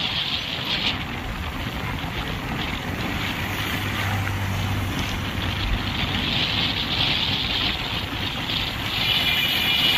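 Wind rushing over the microphone and road noise from a vehicle moving along a highway, steady throughout. A short high-pitched tone sounds near the end.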